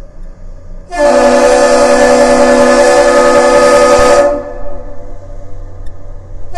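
A long, loud air-horn blast of about three seconds, several steady tones sounding together as a chord. It is a blast in the master salute (long-long-short-short) exchanged between the departing lake freighter John G. Munson and the Aerial Lift Bridge. A second blast starts at the very end.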